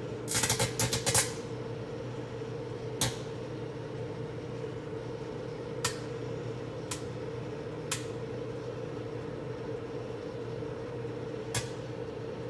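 Microwave oven running with a steady hum, broken by a quick burst of crackling snaps about half a second in and then single sharp snaps every second or few: electrical arcing inside the oven as it makes plasma.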